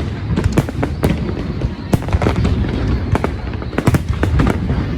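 New Year fireworks going off: a rapid, irregular barrage of loud bangs and crackles, several a second, over a continuous low rumble of overlapping bursts.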